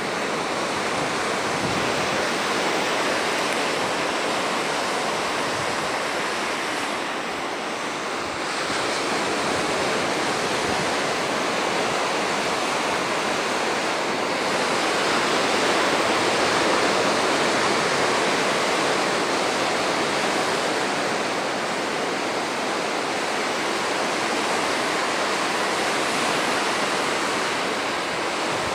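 Ocean surf: waves breaking and washing in to shore as a steady rushing noise, swelling a little about halfway through.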